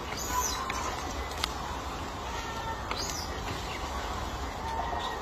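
Steady low outdoor background noise with a few faint, brief chirps and a single sharp click about a second and a half in.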